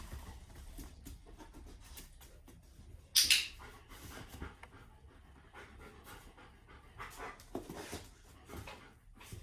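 A dog panting softly in short, irregular breaths, with one brief, loud rush of hissy noise about three seconds in.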